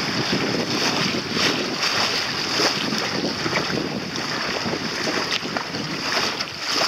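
Wind buffeting the microphone out at sea, with choppy water splashing and lapping around the boat in short irregular slaps.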